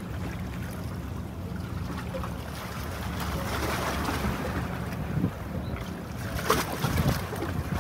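Steady low rumble of a vessel's engine under wind and water noise. A few sharp knocks come near the end.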